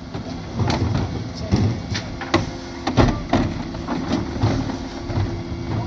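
Terberg OmniDe bin lift on a Dennis Elite 6 refuse truck hooking on, raising and tipping two wheelie bins: a run of knocks and bangs over the steady hum of the truck's engine and hydraulics.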